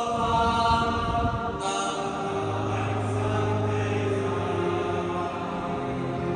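Liturgical chant sung in long held notes, amplified through the cathedral's loudspeaker sound system during a singing rehearsal, with a steady low note underneath from a little past two seconds to about five and a half seconds in.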